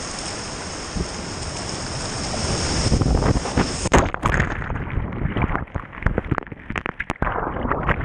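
Rushing whitewater, growing louder as a kayak runs up to the lip of a waterfall. About halfway through the sound turns muffled and choppy, with gurgling and splashing, as the GoPro camera plunges into the water and foam below the drop.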